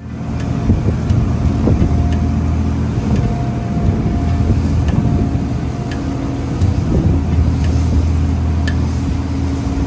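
Charter fishing boat's engine running steadily under way, a low even hum, over a constant rush of water from the bow spray and wake.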